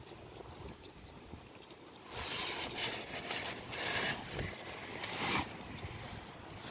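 Aerosol tyre sealant hissing through the tyre's valve stem as the can is pressed down, in several short spurts starting about two seconds in.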